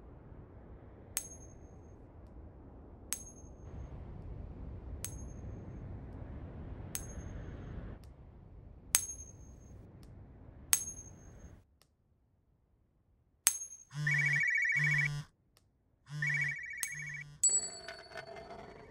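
Sharp high ticks about every two seconds over faint background noise, then near the end a phone ringing in two bursts of about a second each.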